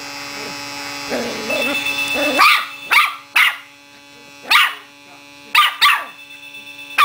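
Rat terrier puppy barking: six short, sharp, high-pitched barks, the first coming a little over two seconds in, over a steady hum.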